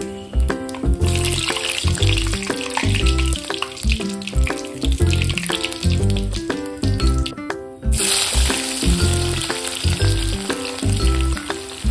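Hot oil sizzling in an iron kadai as whole spices, dried red chillies and bay leaves among them, fry in it. The sizzle starts about a second in and drops out briefly near eight seconds before coming back. Background music with a steady beat plays under it.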